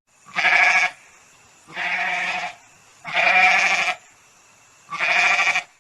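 Goat bleating four times, each call under a second long with a quavering, wavering pitch.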